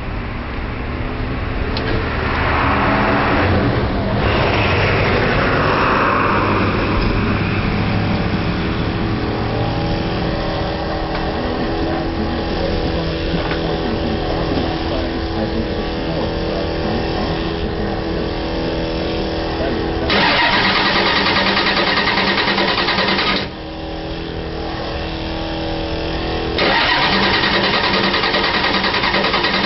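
A cold engine being cranked at about 38°F that will not fire on its own; it sputters a little but does not start. The cranking runs steadily, turns louder and harsher about two-thirds of the way in, dips briefly, then picks up again near the end.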